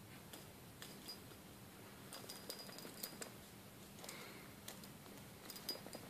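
A small metal jingle bell from a Lindt chocolate bunny, dragged and pecked across a carpet by a budgie, giving faint, irregular little tinkles. Each jingle is a click with a brief high ring, clustered about two to three seconds in and again near the end.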